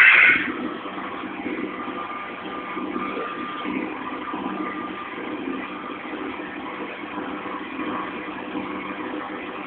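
Wall-mounted electric warm-air hand dryer running with a steady blowing hum. A brief loud sound comes right at the start.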